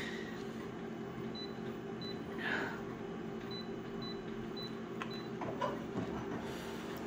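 Office multifunction copier's touchscreen giving about six short high beeps as its keys are pressed, over the machine's steady hum. A few faint clicks near the end come as the copy job starts scanning.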